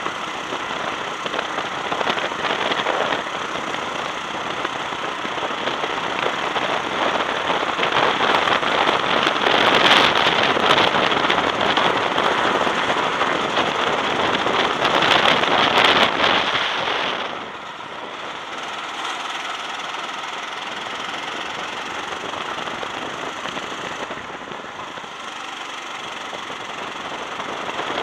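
Go-kart engine running hard on the track, rising to its loudest through the middle, then easing off suddenly about two thirds of the way through and building again near the end.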